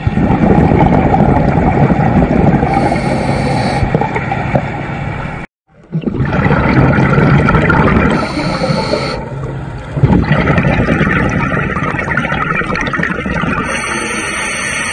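Scuba diver's regulator breathing and exhaled bubbles, a dense rumbling gurgle heard through an underwater camera, swelling and easing with each breath. It cuts out completely about five and a half seconds in, then carries on.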